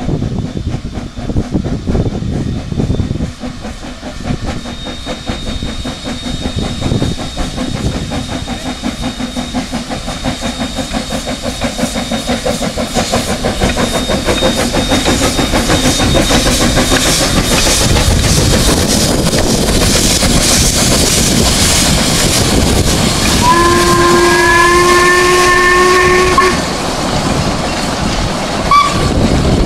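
Narrow-gauge steam locomotive hauling a passenger train past, its exhaust and the wheels on the rails getting louder as it draws near. Near the end a steam whistle sounds a held note of several tones for about three seconds, then gives a short second toot.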